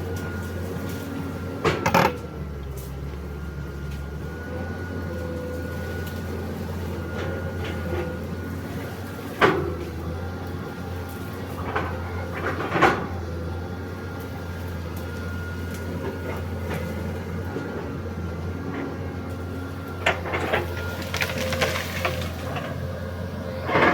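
Excavator's diesel engine running steadily with a constant whine, broken now and then by sharp knocks, with the loudest ones about nine and thirteen seconds in and a cluster near the end.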